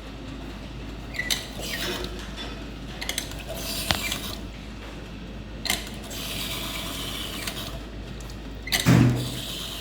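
E61 group head lever on an espresso machine being worked back and forth, with scattered mechanical clicks and a brief squeak from the lever. It ends in a louder clunk near the end. The squeak is the fault to be fixed.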